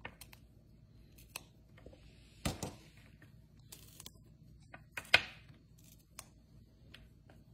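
Fresh green beans being trimmed with a small knife and handled on a metal baking sheet: scattered crisp snips and clicks as the ends are cut off, the loudest about five seconds in.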